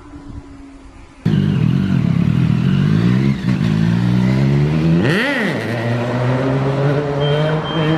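Motorcycle engine, loud, pulling with its pitch climbing slowly, with one quick sharp rev up and back down about five seconds in. It cuts in suddenly a little over a second in, after a quieter engine sound whose pitch falls away.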